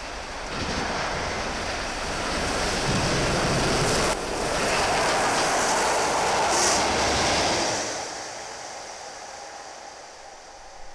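LMS Royal Scot class steam locomotive 46100 passing at speed with its train of coaches: a rushing noise of exhaust and wheels on rails that builds, stays loud for several seconds, then fades away over the last few seconds.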